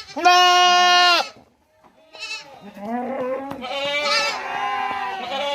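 Large goats bleating: one loud, long bleat of about a second, a short one, then several goats bleating over one another. The uploader presents them as hungry goats calling.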